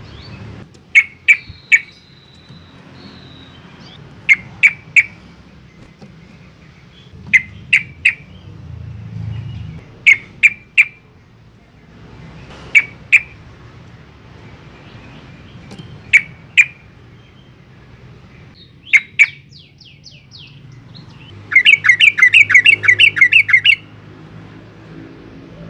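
Yellow-vented bulbul giving loud, sharp calls in quick groups of two or three every few seconds, then a rapid chattering run of about a dozen notes near the end.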